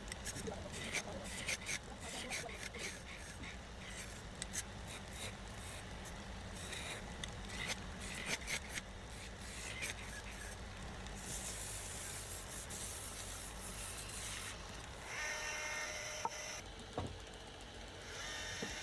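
Wood being worked by hand: irregular scraping and rasping strokes over a steady low hum, turning into a steadier hiss about halfway through, with a few brief squeaks near the end.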